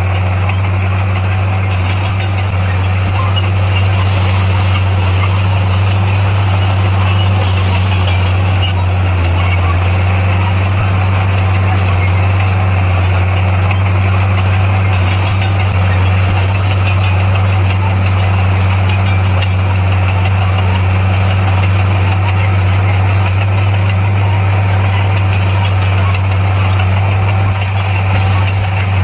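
Heavy earthmoving machine's engine running at a steady, unchanging speed, a constant low drone.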